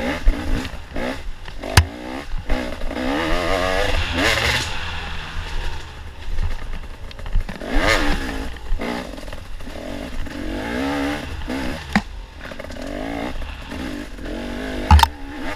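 Off-road motorcycle engine revving up and down again and again as the rider works the throttle through the woods, with a steady low rumble of wind on the helmet-mounted microphone. A few sharp knocks come through, the loudest near the end.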